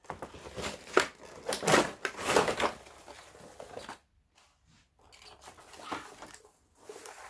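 Packaging being handled and unpacked: bursts of crinkling and rustling, loudest in the first three seconds, a short lull, then a few softer rustles.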